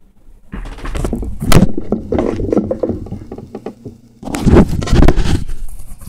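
Close handling noise: rustling, scraping and knocks as the recording device and gear beside it are picked up and moved, in two loud spells with a short lull just before the middle.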